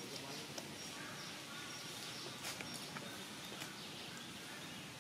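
Outdoor ambience: a steady hiss with faint, short, high chirps of birds scattered through it and a few soft clicks.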